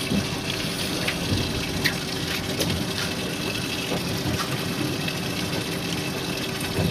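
Steady rushing water noise with a faint steady motor hum from a fishing boat, broken by a few light clicks.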